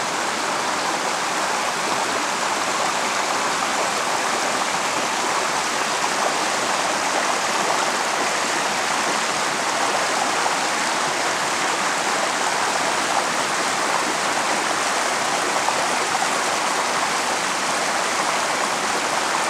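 Shallow rocky stream running over boulders and small cascades, a steady wash of water.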